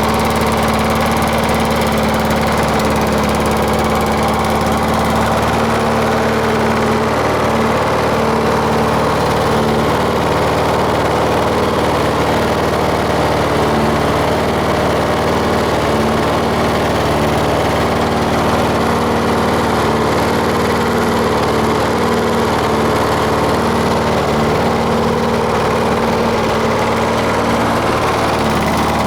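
Briggs & Stratton Quantum 6.0 HP single-cylinder four-stroke lawnmower engine running steadily at one speed, warming up after a cold start in sub-freezing air.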